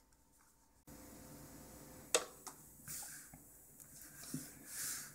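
Faint handling of a BlackBerry Storm 9530 phone on a work surface: a sharp click about two seconds in, then a lighter click and soft rubbing and sliding noises as it is turned over and set down.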